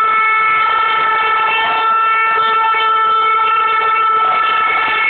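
A fan's horn blown on one steady, unbroken note, held for several seconds over crowd noise.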